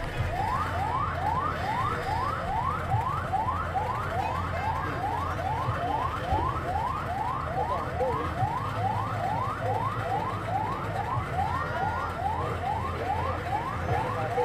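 Ambulance siren sounding in a fast repeating pattern, each wail sweeping up in pitch, about two sweeps a second.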